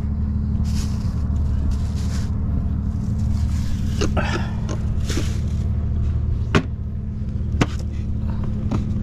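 A steady low engine hum, with scattered clicks and a few short rustling noises over it.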